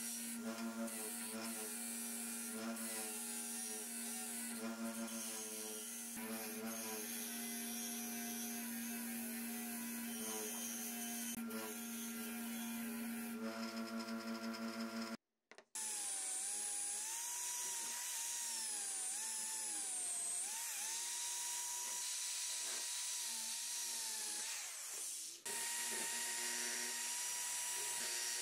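A bench polisher motor spins an abrasive wheel with a steady hum, its pitch dipping and wobbling as the rusty steel housing of an old exhaust fan is pressed against it. After a short break about halfway through, a higher-pitched power tool whine rises and falls in pitch. Near the end a handheld power tool spins a small brush bit against the fan's metal rotor.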